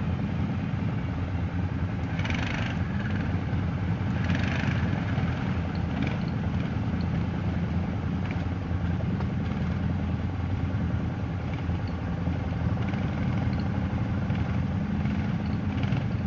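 ATV engine running steadily at a low, even speed, with two brief rushing sounds about two and four seconds in.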